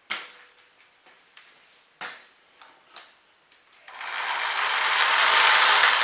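Chicago Electric reciprocating saw run free in the air, its variable-speed trigger squeezed so the motor and blade spin up gradually from about four seconds in, growing louder to near the end. Earlier there are two sharp knocks from handling the saw.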